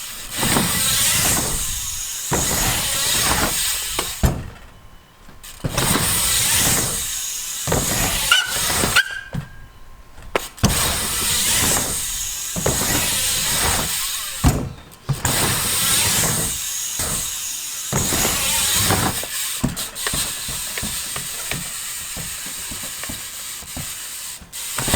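Profile Elite BMX rear hub ratcheting loudly as the bike coasts, a fast clicking buzz, heard in several separate stretches with short breaks between them, and a few sharp knocks of the bike on the ramp.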